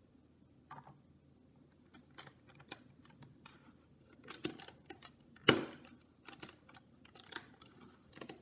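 LEGO bricks being handled and pressed together: a string of irregular small plastic clicks and taps, the loudest about five and a half seconds in.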